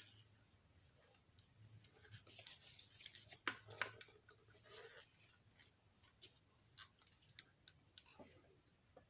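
Faint hand-handling sounds: scattered small clicks and scrapes of parts being worked on, busiest a couple of seconds in, over a low hum.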